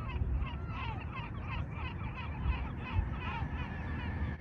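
A flock of greater flamingos calling: many short, overlapping goose-like honks that thin out near the end, over a steady low rumble.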